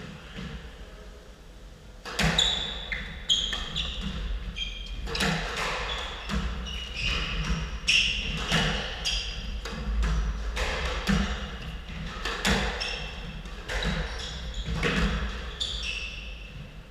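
Squash rally: the ball is struck by rackets and smacks against the court walls again and again, starting about two seconds in, with short high squeaks of court shoes on the wooden floor between the hits.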